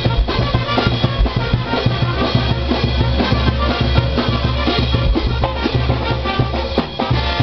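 Brass band playing a lively tune: brass instruments over a steady beat of bass drums and snare hits.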